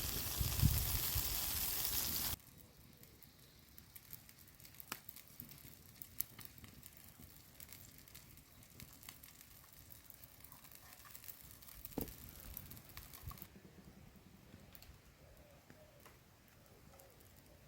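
Omelette sizzling in a pan over a fire, a loud even hiss that cuts off suddenly about two seconds in. Then quiet with scattered faint clicks and ticks, one louder tap about twelve seconds in.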